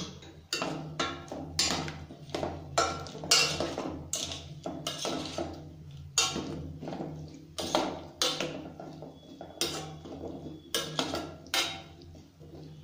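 A metal spoon clanking and scraping against a stainless steel pot while stirring chunky brinjal pieces, in irregular strokes about twice a second.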